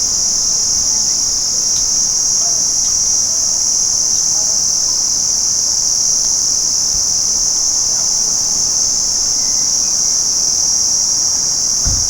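Crickets chirping in an unbroken, steady high-pitched trill, with a brief low thump near the end.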